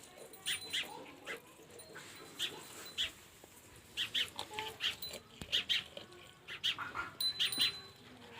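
Short, high-pitched animal cries repeated in quick clusters of two to four.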